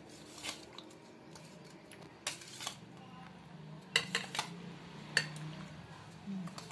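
Stainless steel fork clinking and scraping against a stainless steel bowl while turning fish steaks in liquid. There are scattered clicks, with a quick cluster about four seconds in and another about a second later.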